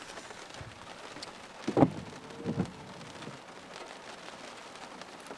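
Steady rain falling on a car, heard from inside. There is a short, loud knock just before two seconds in and a fainter one about half a second later.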